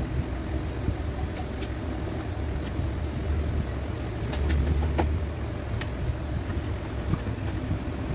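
Low steady rumble, a little louder about halfway through, with a few faint clicks as a screwdriver turns the screws of the power-cord plate on a rice cooker's plastic body.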